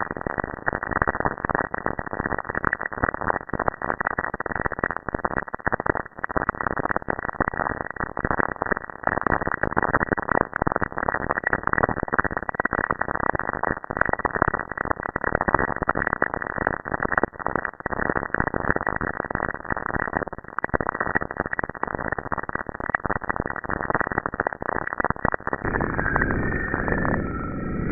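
Dense crackling, hissing static packed with fast irregular clicks, with a hard cutoff at the top: a 'planet sound', spacecraft radio or plasma-wave data made audible. About two seconds from the end it changes to a smoother, deeper rumble with faint gliding tones.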